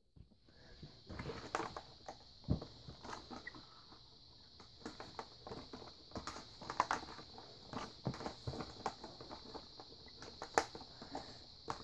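Faint, irregular clicks, taps and rustles of a Bissell 3-Way stick vacuum being handled, with its motor switched off.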